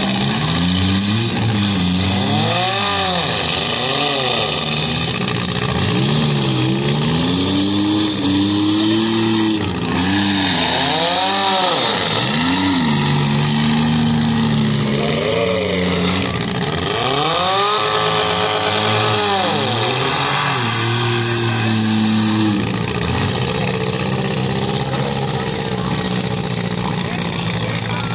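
Demolition-derby compact cars' engines revving hard and dropping back, over and over, as the cars push against one another, with a steady hiss behind them.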